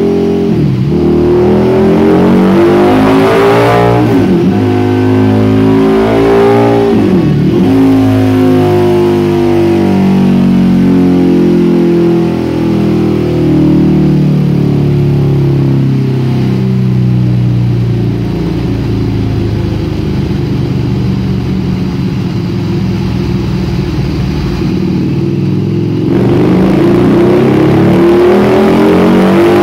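Harley-Davidson V-Rod's liquid-cooled Revolution V-twin, fitted with TAB slip-on mufflers, run hard on a dyno: the revs climb, dipping briefly twice about four and seven seconds in. It then winds down slowly for about ten seconds to a low, steady speed, and near the end it revs up again.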